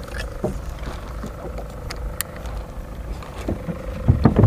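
Fishing boat's engine running steadily, a low rumble with a steady hum over it. A sharp click about two seconds in, and a few low knocks near the end.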